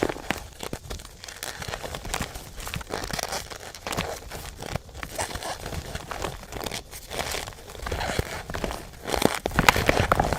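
Dyed gym chalk and reformed chalk being crushed, a dense, irregular run of crunchy crackling snaps that gets busier and louder about nine seconds in.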